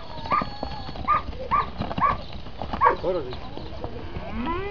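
Short high-pitched calls repeated about twice a second, and near the end a Holando (Holstein) cow begins to moo, its pitch rising.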